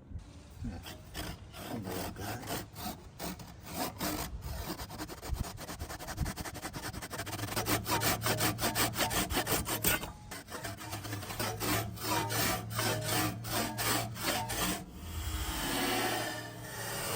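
Hand saw cutting wood with quick, even back-and-forth strokes. The strokes pause briefly about ten seconds in, then resume, and change to a smoother rasping hiss near the end.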